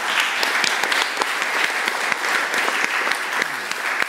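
Audience applauding steadily, many hands clapping, in response to the end of the talk.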